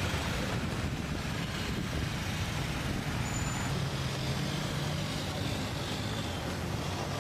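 Steady road-traffic noise with a low vehicle engine hum that stands out for a few seconds in the middle.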